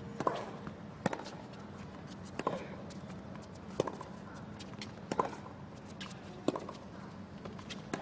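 Tennis ball bounced repeatedly on a hard court before a serve, a sharp bounce about every 1.3 seconds, over a hushed stadium crowd with faint scattered clicks.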